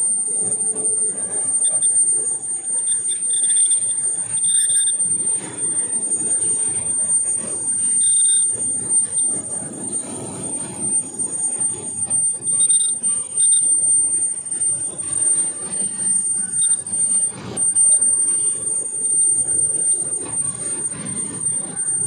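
Machine-shop din from heavy lathes and other machinery running: a continuous high-pitched whine over an uneven rumble and clatter.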